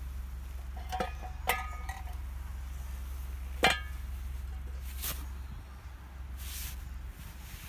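Four metal clinks with a short ring as a square metal frying pan is handled and set down on its stand over the fire pit, the loudest about three and a half seconds in. A steady low rumble runs underneath.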